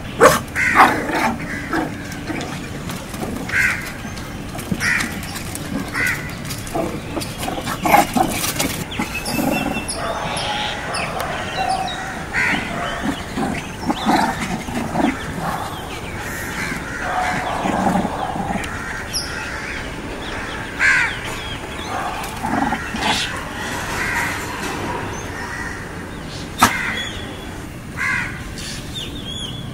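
Short harsh animal calls scattered irregularly, with a few sharp knocks.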